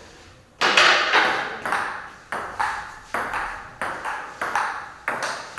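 Table tennis rally: the ball clicking sharply back and forth off the paddles and table, starting with the serve about half a second in and going on at a click every third to half a second. Each click has a short echo.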